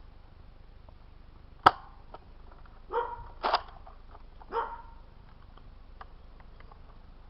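A sharp click about a second and a half in, then a dog barking three times.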